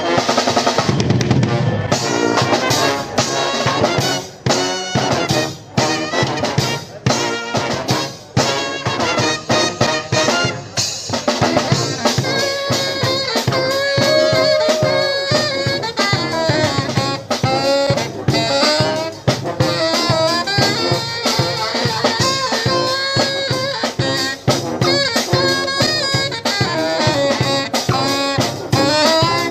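A brass street band playing live: trumpets, saxophones and trombones over a drum kit with a steady beat.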